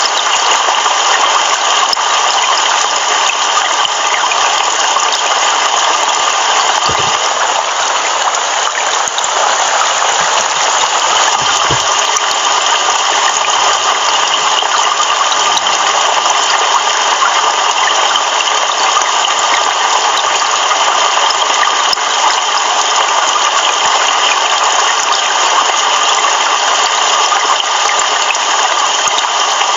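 Heavy rain pouring steadily: a dense, even hiss with no thunder.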